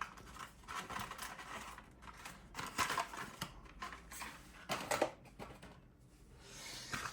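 Light clicks, taps and rustling of small objects being handled and moved about on a desk, in irregular bursts.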